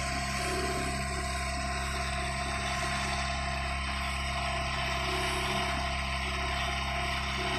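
Mitsubishi 4DR5 four-cylinder diesel engine in a flatboat running steadily at high speed under way, with water rushing along the hull.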